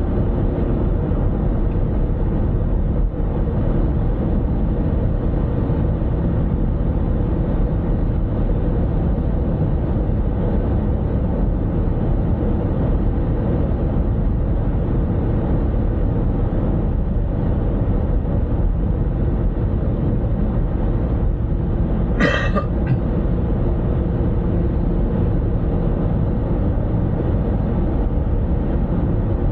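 Steady low rumble of road and engine noise from a car driving at a constant pace. About two-thirds of the way through, a brief, higher-pitched sound of under a second cuts through.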